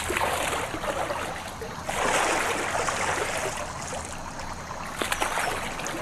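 Water sloshing and splashing as a young Amur tiger wades through a shallow pond, in surges that are loudest about two seconds in.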